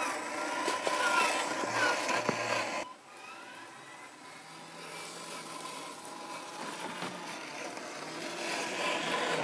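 Electric motor and geared drivetrain of a 1/8-scale RC trail truck whining as it crawls over dry leaf litter, with leaves crackling under the tyres. The sound drops sharply about three seconds in, then builds again as the truck comes closer.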